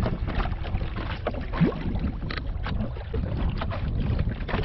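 Wind buffeting the microphone in a steady low rumble, with small waves splashing and slapping irregularly against the hull of an Optimist sailing dinghy under way.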